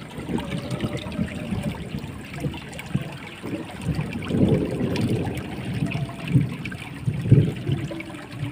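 Water of a small, fast-flowing ditch running and trickling steadily.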